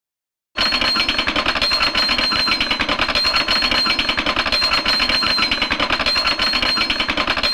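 Cartoon sound effect: a loud, very fast continuous rattle of strikes with a steady high ring over it, starting abruptly about half a second in.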